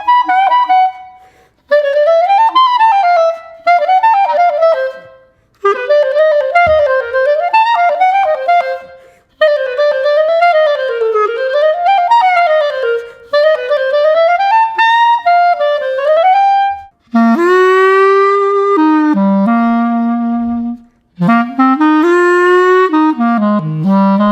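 Cheap plastic clarinet, fitted with a professional mouthpiece, ligature and reed, playing quick runs and arpeggios up and down in short phrases with brief pauses between them. About two-thirds of the way in it drops to lower, longer-held notes.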